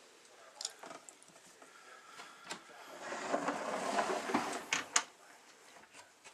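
Plastic tub scraping as it slides along a snake rack shelf, with a few sharp clicks and knocks; the scraping is loudest for about two seconds in the middle.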